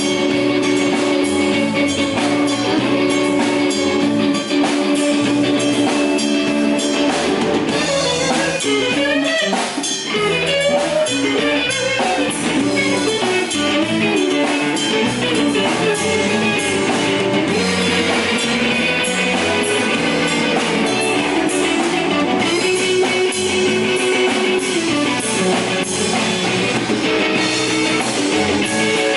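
Live blues band playing an instrumental break: an electric guitar solo over a drum kit. The guitar holds long notes at first, then plays quick runs about eight seconds in.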